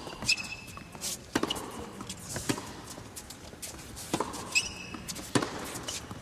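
Tennis rally on an indoor hard court: sharp pops of the ball off the racquets and the court, about one every second or so, with a few short high squeaks of shoes on the court.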